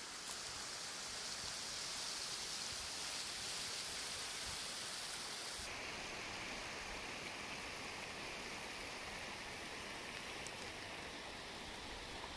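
Steady outdoor rushing noise, like rain or water, with an abrupt change in its tone about six seconds in.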